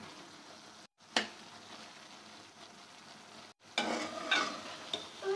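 Potatoes and beaten eggs sizzling faintly in a pan, stirred and scraped slowly with a spoon. There is a sharp click about a second in, and louder scraping strokes in the last second and a half. The sound cuts out completely twice, very briefly.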